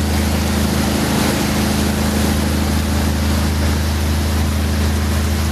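Foaming wake water rushing past a large wooden-decked Amazon passenger riverboat, over the boat's steady low engine hum.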